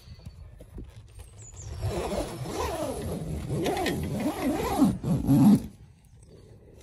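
Zip on a Hilleberg Niak tent's fly-sheet door being drawn in one long rasp of about four seconds, starting about two seconds in, its pitch wavering with the speed of the pull.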